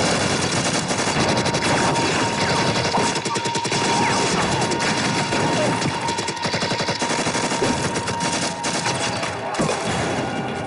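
Dense automatic gunfire from a TV-drama firefight: submachine guns firing rapid bursts, many shots overlapping, thinning out near the end.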